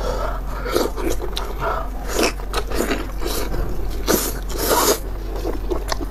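Close-miked eating: stuffed tripe being pulled apart by gloved hands, bitten into and chewed, in irregular bursts of sticky tearing and biting.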